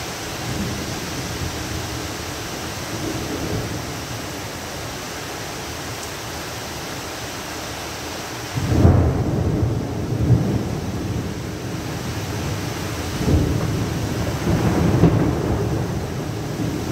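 Heavy rain falling steadily. About halfway through, a sudden low rumble of thunder breaks in and rolls on in several swells.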